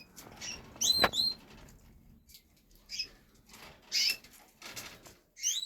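Canaries giving short, high chirping calls, a handful scattered through, the loudest two about a second in.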